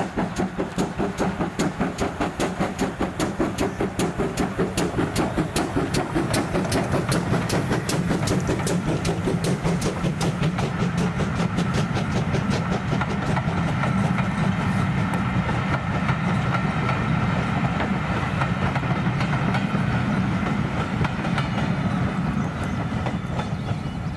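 Steam locomotive working hard past, its exhaust chuffing at about three beats a second, then the coaches rolling by with a steady rumble over the rails and a faint steady high tone in the second half, easing off near the end.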